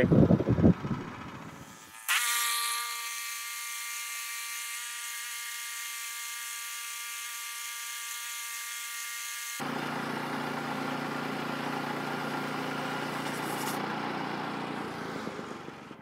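Portable bandsaw sawmill running, its small gas engine and band blade cutting lengthwise through a squared log. It is a steady mechanical whine that changes abruptly twice, about two seconds in and again a little past halfway, to a rougher, fuller sound, and fades near the end.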